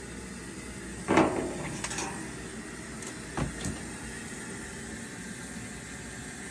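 A sharp knock about a second in and a lighter double knock a couple of seconds later, like objects being handled and set down, over a steady low hum.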